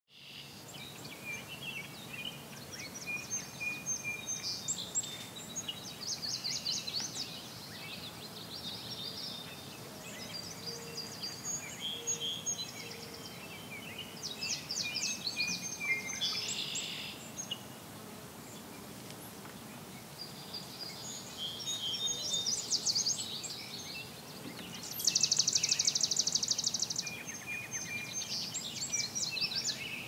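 Several songbirds singing over one another in repeated chirps, whistles and trills. The loudest is a fast, even trill lasting about two seconds near the end.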